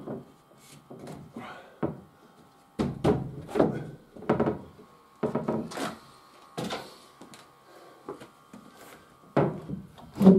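Timber stair treads and winder parts being handled and knocked into place: a series of irregular wooden knocks and thuds, the loudest near the end.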